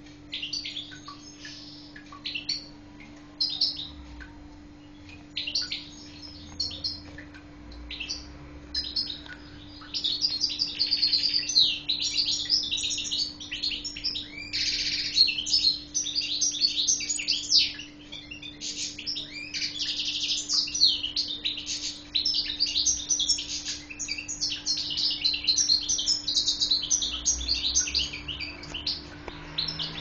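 Goldfinch of the Algerian race (parva) singing. Scattered short chirps give way, about ten seconds in, to a fast, continuous twittering song. A faint steady hum lies underneath.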